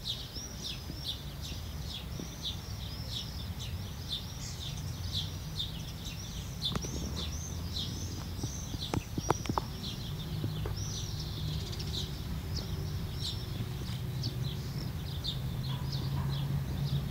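Small birds chirping repeatedly, a few short high chirps a second, over a low steady rumble. A few sharp clicks come about halfway through.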